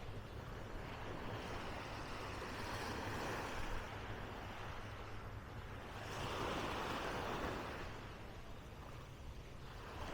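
Small sea waves washing onto a sandy beach, the wash swelling and fading every few seconds over a steady low rumble.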